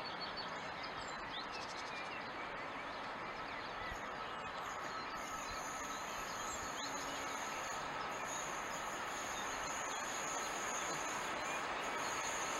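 A train hauled by a pair of DSB MZ diesel locomotives approaches from the distance, a faint rumble that grows slowly louder. A thin high whine from the rails sets in about halfway through. Birds chirp over the outdoor background.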